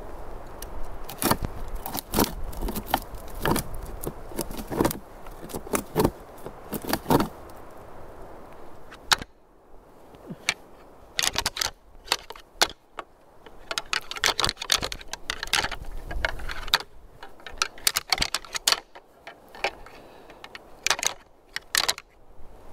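A deer rattling sequence, imitating two bucks fighting: irregular bursts of clicking, clashing and grinding, with a short pause about a third of the way in before a second, longer run.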